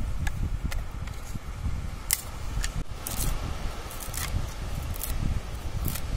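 Dry sticks clicking against each other and a coconut husk rustling as they are laid into a fire pit, with about ten short sharp clicks scattered through. Under them runs a steady low rumble of wind on the microphone.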